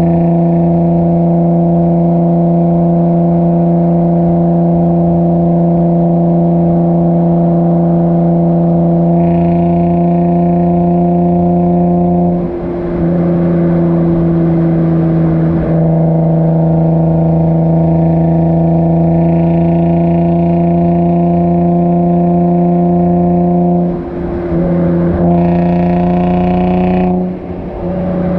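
Infiniti G35's 3.5-litre V6 droning at a steady engine speed through a Motordyne Shockwave exhaust, heard close to the tailpipes. The note dips briefly about halfway and twice near the end.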